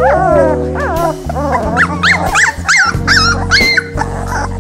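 Three-week-old Bouvier des Flandres puppies whimpering and yipping: one longer falling whine at the start, then a quick run of short high squeals about halfway through, over background music.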